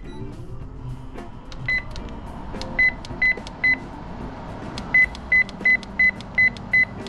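Control panel of a National built-in cooktop's grill beeping at each button press while its cooking timer is set. About ten short, high beeps: one, then three quickly together, then a steady run of six at about three a second. A steady rushing noise runs underneath.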